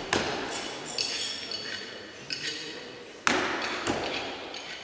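Throwing knives striking targets: two sharp knocks with a metallic ring, one right at the start and one about three seconds later, with lighter clinks in between, each echoing in a large hall.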